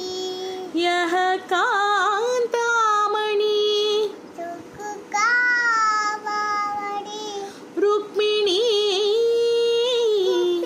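A young girl singing a Sanskrit devotional verse in raga Desh, alone without accompaniment, drawing out long ornamented notes that waver in pitch, with brief breath pauses between phrases.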